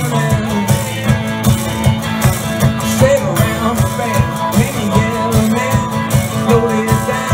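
Live blues band playing through a PA, with no singing: acoustic guitar and banjo over drums keeping a steady, fast beat.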